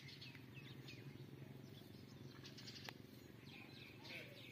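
Near silence: small birds chirping faintly in short, scattered falling chirps over a low steady hum.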